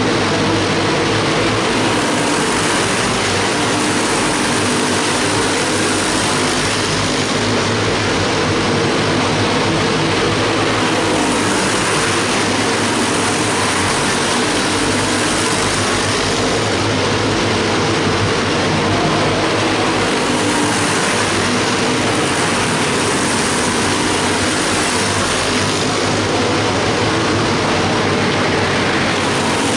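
Several quarter midget race cars running laps together, their small engines droning steadily. The sound swells and fades in turn as the pack comes around.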